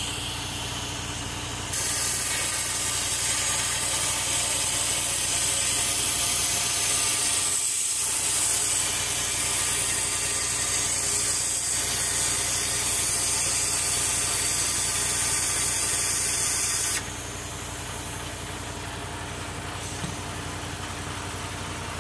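Air-fed cavity-wax spray gun with a flexible probe, spraying wax inside a chassis rail. A loud steady hiss starts about two seconds in, falters briefly around eight seconds and cuts off sharply about three-quarters of the way through, over a steady low hum.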